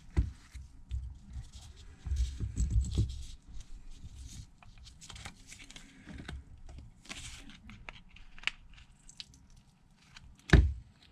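A plastic pry card scrapes along the back glass of a Samsung Galaxy Note 9 while the adhesive underneath tears loose as the glass is lifted, with scattered small clicks. There is a sharp knock near the start and another near the end.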